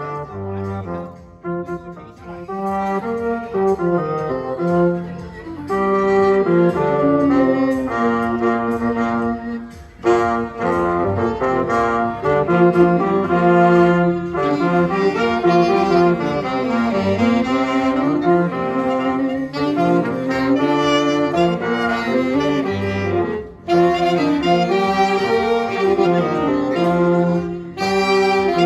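Small amateur band playing a tune live, with a melody carried by wind instruments. The music briefly dips between phrases about ten seconds in and again near the end.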